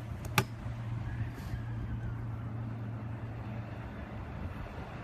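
Stunt scooter riding on concrete: one sharp clack of the scooter hitting the ground near the start, then a steady low rumble of the wheels rolling.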